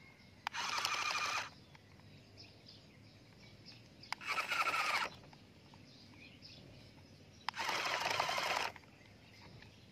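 Toy dump truck moving in three short spurts of about a second each, a gritty whirring and grinding from its plastic wheels and gears.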